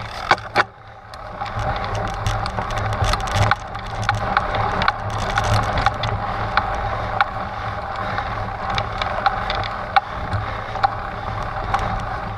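Trek Stache 9 29+ mountain bike riding over a rocky trail: tyre crunch and many sharp clicks and rattles over a steady low rumble, getting louder about a second in.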